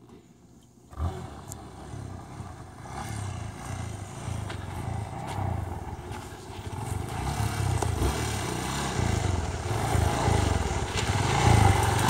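Yamaha trail motorcycle engine approaching, a low engine note that starts about a second in and grows steadily louder as the bike nears.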